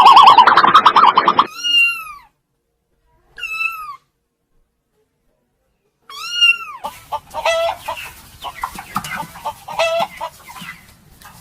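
Animal calls. A loud, rapidly pulsing call comes first, then short calls that rise and fall in pitch with abrupt silent gaps between them. In the second half, more calls sound over steady background noise.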